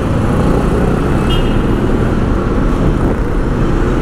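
Steady street traffic noise: vehicle engines and road rumble, with a brief faint high tone about a second in.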